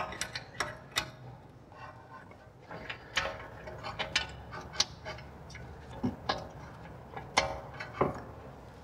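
Irregular metallic clicks and clinks, about two or three a second, some with a short ring, as an 18 mm combination wrench works a brake caliper carrier bolt loose.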